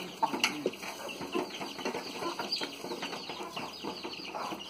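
A mixed group of chickens and young piglets feeding together: a steady chatter of many short clucks, cheeps and grunts.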